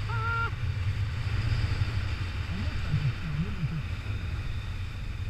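Wind buffeting the camera microphone in flight under a paraglider: a steady low rumble. A short flat tone sounds right at the start.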